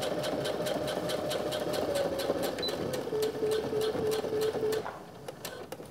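Electric sewing machine stitching through thick vinyl faux leather, backstitching to secure the end of a corner seam. The motor hums steadily with the needle clicking about five times a second. The motor pitch drops about three seconds in, and it stops near five seconds.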